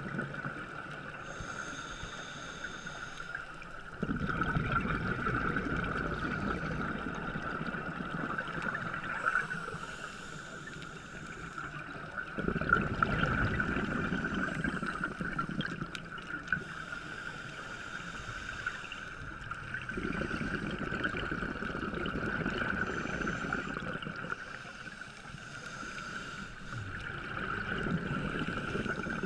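Scuba diver breathing through a regulator underwater: long, rumbling surges of exhaled bubbles lasting several seconds each, alternating with quieter, hissing inhalations. A steady high whine sits underneath.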